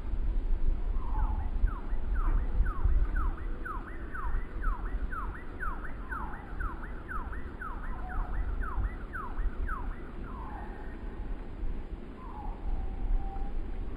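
Gusty wind rumbling on the microphone as the trees sway. Over it, a faint series of short downward-sweeping whistled calls repeats about two to three times a second, then slows to a few longer down-slurred calls near the end.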